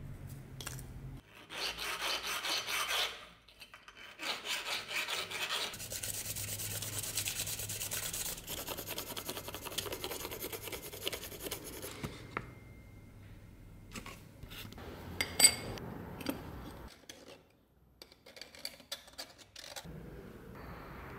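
Pencil lead scratching back and forth on paper laid over an embossed metal piece, taking a rubbing of its pattern. A sharp click about 15 seconds in, and a few small knocks near the end.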